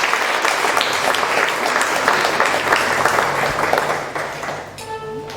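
Audience applauding after a beginner string group's piece, the claps dying away about four and a half seconds in. Near the end a violin begins a held note.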